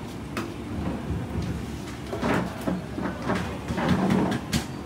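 Irregular knocks and clatter of things being handled at a stainless-steel shop counter, busiest in the second half, over a steady low background hum.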